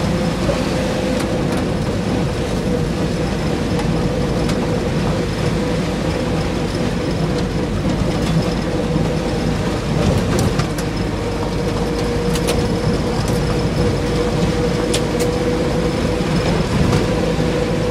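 1965 Land Rover Series IIa driving steadily along a gravel road, heard from inside the cab: a constant low engine and drivetrain rumble with tyre noise, and a few brief clicks and rattles.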